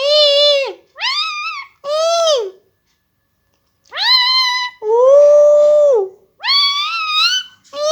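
Pet parrot calling: about seven loud, short, pitched squawks, each rising and falling, with a pause of over a second just before the middle and one longer, flatter call after it.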